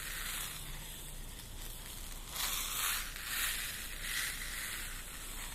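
Seed beads rolling and sliding inside a glass jar with a plastic lid, tilted back and forth as a homemade ocean-wave sound effect. It makes a soft hissing wash that swells and ebbs, with three clearer swells in the second half.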